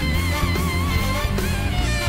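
Rock-style outro music: a lead melody that wavers in pitch over a heavy, steady bass.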